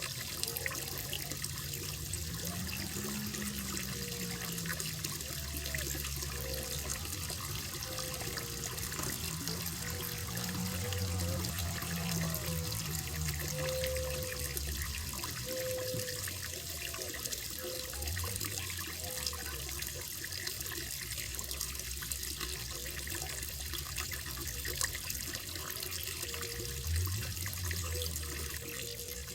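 Running water trickling and splashing steadily into a koi pond.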